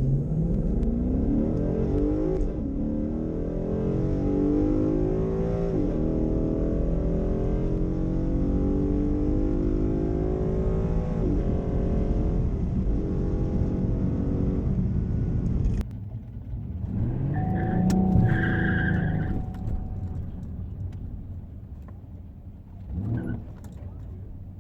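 Pontiac Grand Am GT's 3.4-litre V6 at full throttle on a drag-strip pass, its pitch climbing and dropping back at each automatic upshift, several times. The sound cuts off suddenly past halfway. A shorter vehicle sound swells and fades after that, and there is a brief knock near the end.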